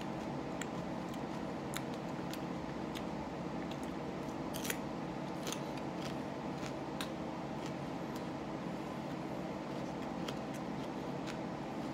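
A man chewing jalapeño peppers: scattered crisp crunching and smacking clicks, the sharpest about four and a half seconds in, over a steady background hum.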